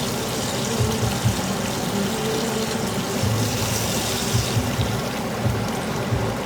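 Hot oil sizzling steadily in a frying pan of fish, potatoes and onions, with music and a low beat playing underneath.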